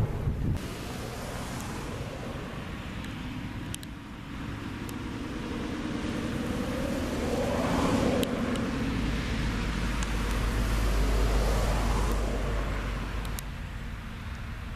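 A car passing by on a nearby road, swelling to its loudest about eight seconds in and then fading. It is followed by a deep low rumble lasting a few seconds.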